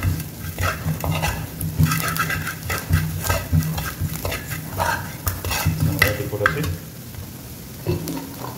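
Metal spoon stirring and scraping onions and chilli powder around a frying pan, over sizzling oil. The strokes are irregular and ease off about seven seconds in.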